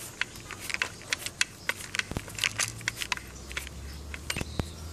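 A Phillips screwdriver turning a screw out of a metal bracket: a run of irregular small clicks and scrapes, a few a second, with a couple of duller knocks about two seconds in and near the end.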